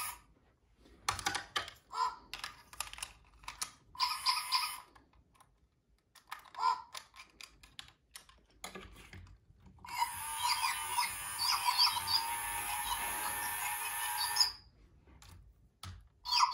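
Chirpy Chi robotic bird toy chirping electronically through its small speaker: short bursts of chirps, then a longer run of rapid chirping lasting about four seconds, starting about ten seconds in.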